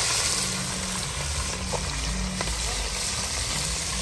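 Mojarra (tilapia) frying on the grill fire, a steady sizzling hiss that eases a little after the first second. Music plays underneath.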